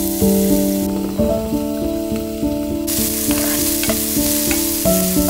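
Diced onion sizzling in hot oil in a frying pan as it is tipped in and stirred with a wooden spatula, with light scrapes and taps of the spatula on the pan. The sizzle is loudest at the start and swells again about three seconds in.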